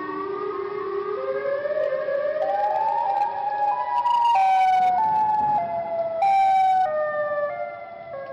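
Siren Head monster's siren-call sound effect: a wailing siren tone that climbs in small steps for about four seconds, then steps back down.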